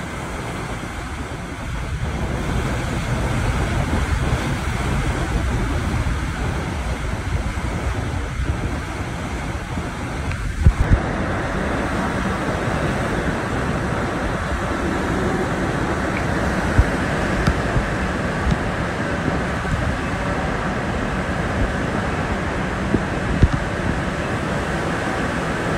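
Hurricane eyewall wind blowing hard and steadily, buffeting the microphone, with a few sharp knocks. The sound changes abruptly about eleven seconds in.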